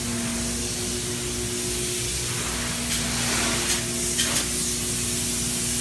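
Closed-cell spray foam gun spraying with a steady hiss over a steady low machine hum, with a few short louder spurts of spray about three to four seconds in.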